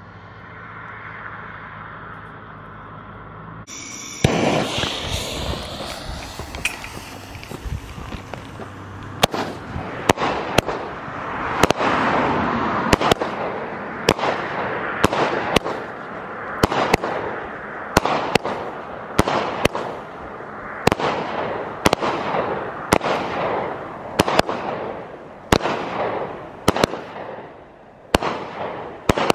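A 25-shot consumer firework cake ('Easy Does It') firing. After a low hum, a loud hissing rush starts about four seconds in. From about nine seconds in, sharp shots come one after another, roughly one or two a second, each followed by a crackling tail.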